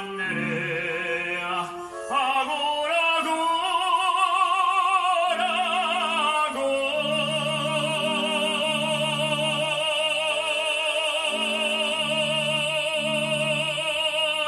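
A man singing an operatic aria in full voice with wide vibrato, over an instrumental backing of sustained low notes. From about halfway through he holds one long note, which breaks off at the end.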